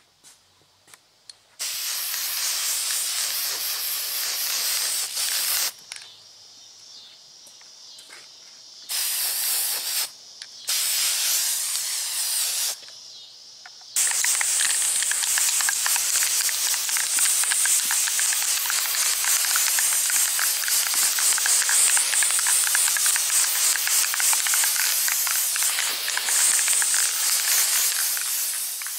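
Aerosol can of flat black spray paint hissing as a guide coat is dusted on. There are three short sprays of a second to four seconds each, then one long continuous spray of about fourteen seconds.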